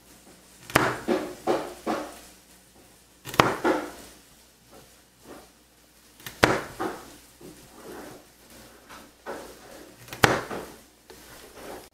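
A chef's knife chopping carrots on a plastic cutting board: four sharp knocks of the blade on the board, a few seconds apart, each followed by a handful of softer cuts.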